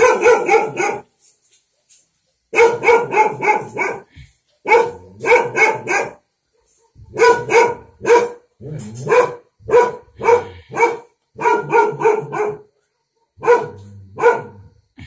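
A dog barking repeatedly, in quick runs of three to five fairly high-pitched barks with short pauses between the runs.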